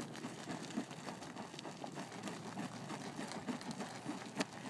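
Capped plastic soda bottle holding toilet cleaner and aluminum-foil pieces, handled and swirled in the hands: faint, irregular small crackles and rustling throughout, with no single loud event.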